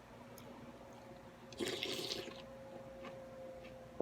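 A short wet slurp of pho broth and noodles about one and a half seconds in, over a faint steady hum.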